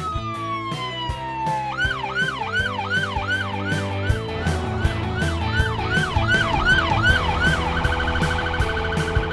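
Electronic police car siren over background music with a steady beat. It opens with one long falling tone, then cycles in quick sweeps about twice a second, and switches to a fast warble near the end.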